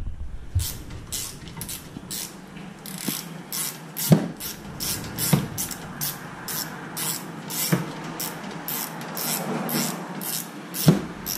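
Hand ratchet on the 12 mm brake caliper bolt, its pawl clicking in a steady run, about three clicks a second, with a few heavier knocks in between. The caliper guide pin is turning with the bolt, so the bolt does not tighten.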